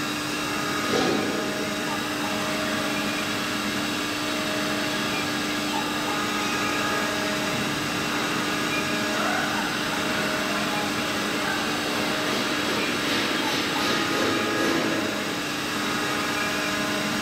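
Small five-axis CNC router's spindle running steadily as it carves a head-shaped bust, a continuous whine with several steady tones.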